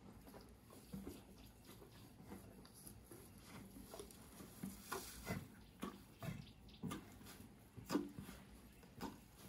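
Baby rhino chewing mouthfuls of dry teff hay bedding: soft, irregular crunches and wet mouth sounds about once a second, the loudest about eight seconds in.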